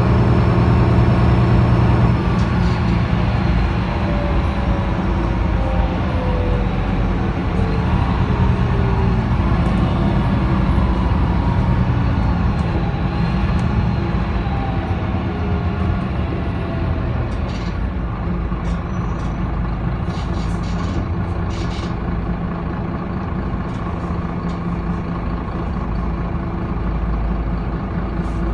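MAN NL323F bus with a D2066 diesel engine and ZF EcoLife automatic gearbox, heard on board as it eases off and slows: a whine falls slowly in pitch as road speed drops. The bus then settles to a low idle, with a few short clicks and hisses near the end.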